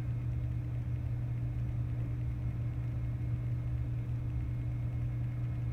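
A steady low hum with no voice over it.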